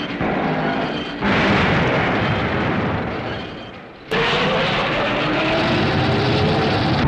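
Film sound effects: a loud explosion about a second in that dies away over the next few seconds, then Godzilla's roar starting about four seconds in, rising in pitch over a continuing rumble.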